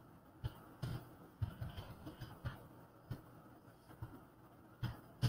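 Computer keyboard keys tapped in short, irregular clicks, some in quick clusters: a word being typed and partly deleted.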